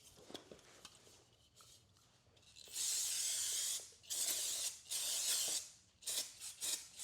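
Aerosol brake parts cleaner spraying in repeated bursts starting about three seconds in: a long one of about a second, two more, then a few short spurts near the end.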